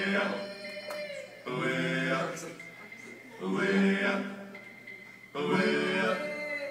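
A French action song sung in short chant-like phrases, a new phrase starting about every two seconds.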